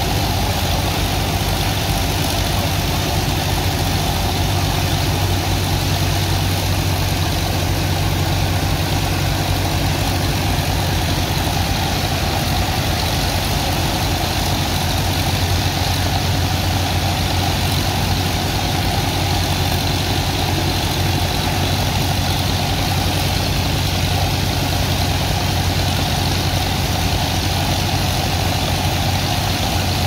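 Steady low drone of the engine driving the sand dredge and water pump, with the continuous hiss of a high-pressure water jet spraying into the wet sand.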